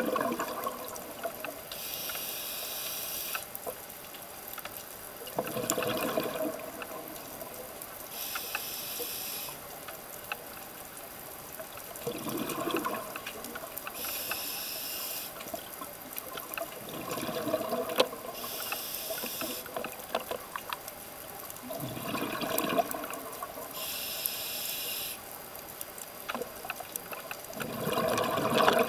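Scuba diver breathing through a regulator underwater: a hissing inhale followed by a bubbling, gurgling exhale. The cycle repeats steadily about every five to six seconds, five or six breaths in all.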